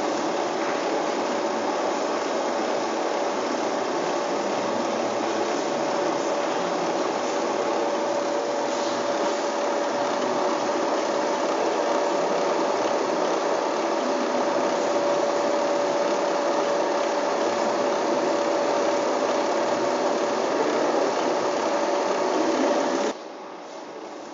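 Film projector running: a steady mechanical noise with a constant hum tone through it, cutting off abruptly near the end.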